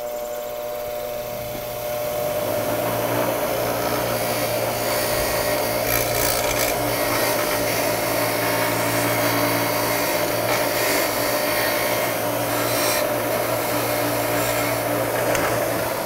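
6-inch bench grinder running, its wire wheel scrubbing rust off a steel brake caliper slider pin held in pliers: a steady motor hum under a continuous rasping scratch, which gets louder about two seconds in.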